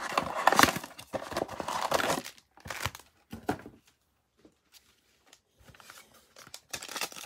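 A Panini Prizm football blaster box being torn open and its foil card packs handled: cardboard tearing and plastic-foil crinkling and rustling with small knocks. The handling stops for about two seconds in the middle and starts again near the end.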